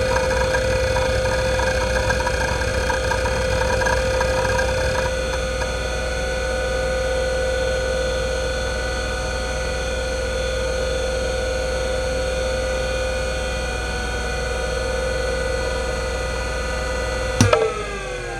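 IBM WDA-L42 40MB 3.5-inch 3600 rpm IDE hard drive running with a steady spindle whine, with busy seek chatter under the Speedsys benchmark for the first few seconds before it settles. Near the end a sharp click comes, then the whine falls in pitch as the platter spins down.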